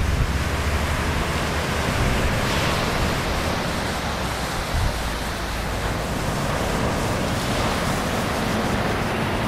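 Ocean surf breaking and washing up the beach, a steady hiss of noise, with wind gusting against the microphone as an uneven low rumble.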